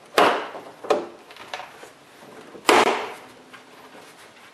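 Plastic retaining clips along the top edge of a Honda Odyssey's rear bumper cover snapping loose as the cover is pulled outward: three sharp snaps, the loudest about two and a half seconds in.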